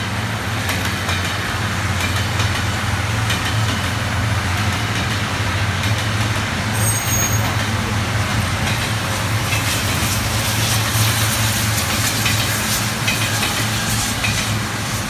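Taiwan Railways diesel multiple-unit Tze-Chiang express passing, its diesel engines giving a steady low drone under the running noise of the train, with scattered clicks in the second half.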